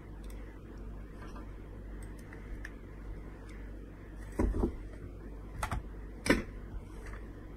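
Scattered clicks and a few heavier knocks from computer use at a desk, typical of a mouse and keyboard. The loudest knock comes about six seconds in, over a low steady hum.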